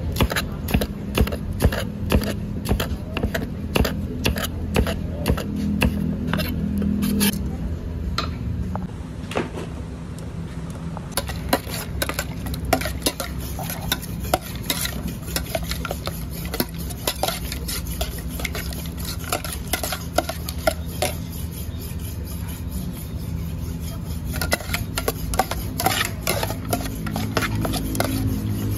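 A metal spatula clanking and scraping against a wok during stir-frying, with sharp strikes about two a second for the first several seconds, then more scattered scraping and knocks. A steady low hum runs underneath.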